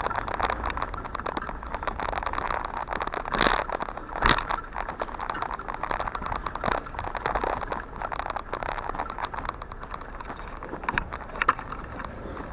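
Footsteps with a bicycle being wheeled along, an uneven crunching and crackling, with two louder knocks about three and four seconds in.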